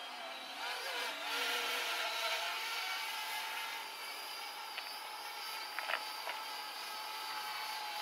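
Parrot Bebop 2 quadcopter's motors and propellers whining in flight, the pitch wavering up and down in the first couple of seconds as the motors change speed, then holding steady.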